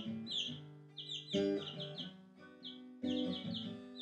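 Acoustic guitar being strummed, a chord struck about every second and a half and left ringing, while baby chicks peep over it in short falling cheeps, several a second.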